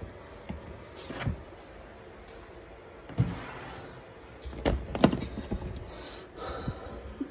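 Plastic storage-tub enclosure being handled: its lid and latches clack and scrape as it is opened, with several sharp knocks, the loudest pair about five seconds in.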